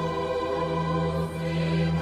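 Choral music holding one long sustained chord over a low bass note.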